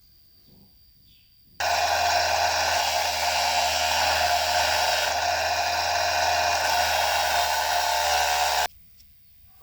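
A small electric motor running at a steady speed with a whirring whine, switched on about a second and a half in and cut off abruptly about a second before the end.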